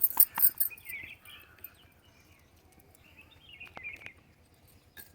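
A few sharp knocks right at the start, then birds chirping in two short bouts, about a second in and again near four seconds.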